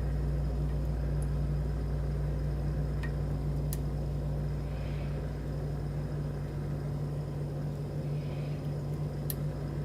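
Steady low hum, with a few faint, light clicks of a lock pick working the pin stack of a challenge lock, a few seconds apart.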